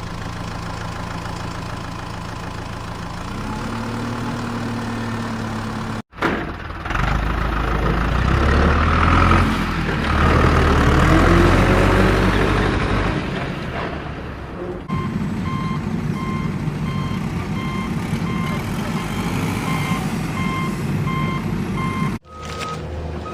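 Truck engine sounds in three abruptly cut sections: a steady engine hum that rises a little in pitch, then a louder, deeper engine rumble, then a reversing alarm beeping at an even pace over the engine.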